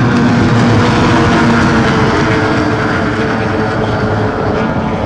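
A pack of racing outboard motors on small racing boats running at full speed together, a loud layered engine drone of several pitches that eases slightly lower as the boats go by.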